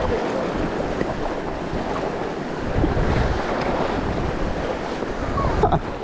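River water flowing, a steady rush, with wind buffeting the microphone in low rumbles, the strongest about three seconds in.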